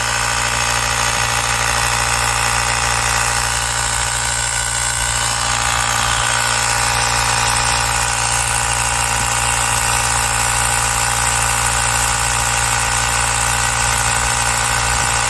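Cordless portable tyre inflator's small air compressor running steadily, an even mechanical buzz.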